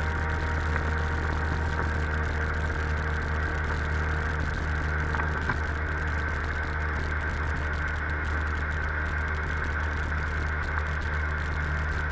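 Sea-Doo XP jet ski's 787 cc two-stroke twin engine running at a steady pitch as the craft moves across the water.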